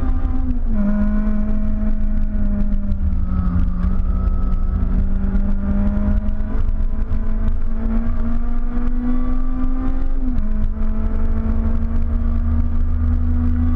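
Honda Civic's K20 four-cylinder engine heard from inside the cabin under hard track driving. It runs at high revs with a sharp drop in pitch at two upshifts, about half a second in and about ten seconds in. Between them the revs sag and then climb again, over a heavy low road-and-drivetrain rumble.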